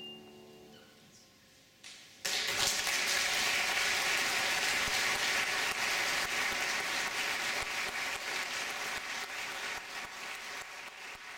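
Audience applause, starting suddenly about two seconds in and easing off slightly near the end, after the last notes of a classical music piece die away.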